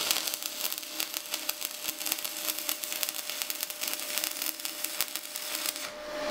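Stick-welding arc of a 6013 general-purpose electrode on mild steel plate, a dense steady crackle and sizzle that cuts off near the end as the arc is broken.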